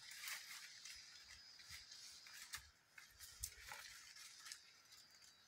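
Near silence, with faint, scattered rustles and crackles of footsteps pushing through woodland undergrowth.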